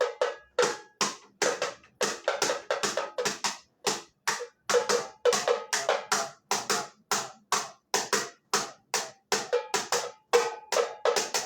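Tamborim struck with a stick, playing a fast syncopated samba pattern of about four sharp, ringing strokes a second. The pattern is typical of the teleco-teco tamborim beat.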